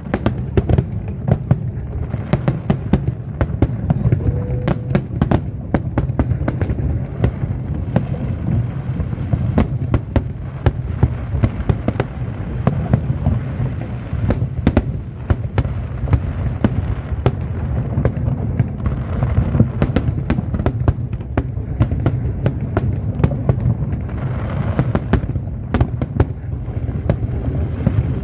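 Fireworks display going off in a continuous barrage: many sharp bangs in quick, irregular succession over a steady low rumble.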